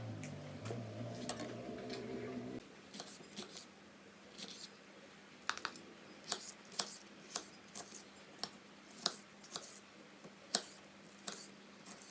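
Background music that cuts off about two and a half seconds in, followed by irregular sharp clicks and snaps, roughly one or two a second.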